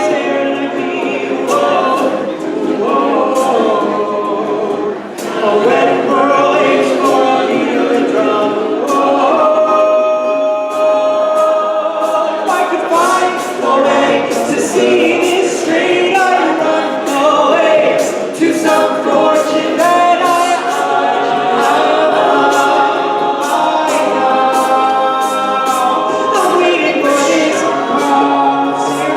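An a cappella vocal group singing a pop song in layered harmony, with a bass voice underneath and vocal percussion keeping a steady beat of sharp clicks and snare-like hits.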